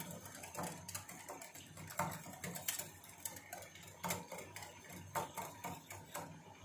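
Wire whisk beating yogurt in a glass bowl, its metal tines clicking lightly against the glass about twice a second in an uneven rhythm.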